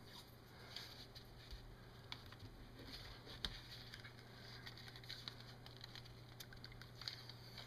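Faint handling sounds of tape being worked around a plastic power adapter case: scattered small clicks and crinkles, with one sharper click about three and a half seconds in, over a low steady hum.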